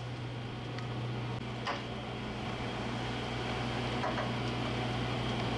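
Steady low hum of a fishing boat's machinery running, with a few faint knocks on deck.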